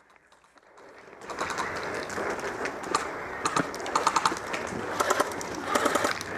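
Near silence for about a second, then several short bursts of rapid clicking airsoft gunfire over a steady rustling noise.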